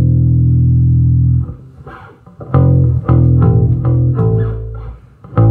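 Four-string electric bass guitar played solo. One long held note is followed, after a short pause with faint string clicks, by a run of separate plucked notes, then a brief gap and one more note near the end.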